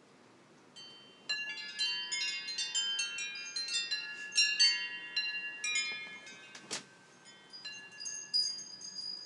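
Wind chimes ringing: many clear, overlapping tones set off one after another. They start about a second in, are busiest in the first half, then thin out to scattered notes.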